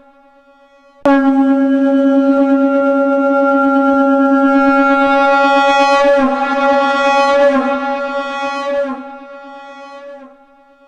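Shankh (conch shell) sounding one long, steady blast pitched at C#, starting abruptly about a second in. The note wavers briefly past the middle and fades out near the end.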